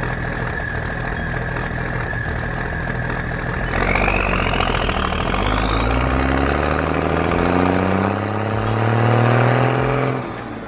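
Truck engine sound effect: running steadily at first, then from about four seconds in revving up, its pitch rising along with a climbing whine, until it breaks off near the end.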